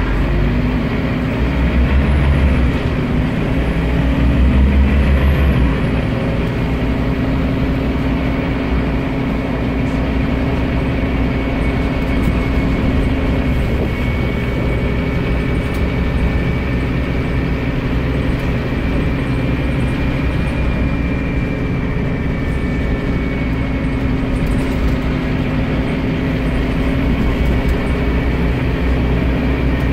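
Scania CN230UB OmniCity bus heard from inside the passenger saloon while under way: the rear-mounted diesel engine's drone mixed with road and body noise. It is heaviest over the first few seconds as the engine pulls, then settles to a steady cruise with a thin high whine.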